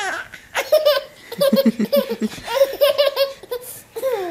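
Infant laughing in a string of short, high-pitched bursts of belly laughter.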